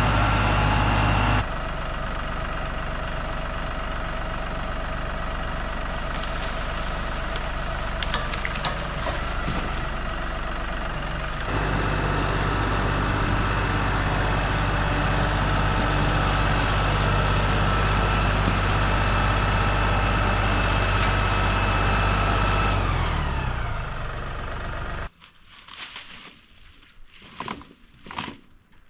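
LS XG3140 tractor's diesel engine running steadily, dropping in loudness about a second and a half in and rising again about twelve seconds in. It then winds down with falling pitch and shuts off about twenty-five seconds in, leaving a few faint knocks and rustles.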